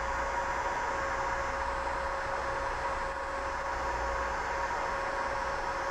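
Electric heat gun running steadily: a blowing hiss from its airflow with a steady whine from its fan motor, shrinking heat-shrink tubing over a wire connector.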